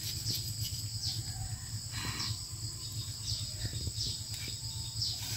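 Insects droning in a steady high-pitched chorus, with a short falling chirp about once a second and a few faint clicks.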